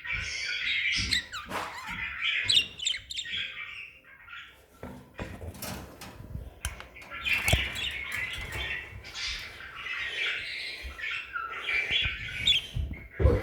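Budgerigars chattering and warbling in a busy run of chirps, with scattered sharp clicks and knocks.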